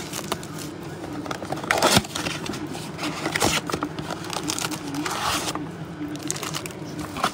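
Trading card packs being opened and cards handled: scraping and crinkling of wrappers and card stock with many quick clicks. There are louder scraping bursts about two, three and a half, and five seconds in, over a steady low hum.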